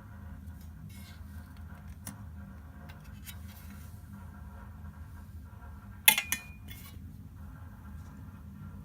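Hermes Baby portable typewriter mechanism: a few faint clicks, then a loud cluster of sharp metallic clacks about six seconds in, with a brief ring.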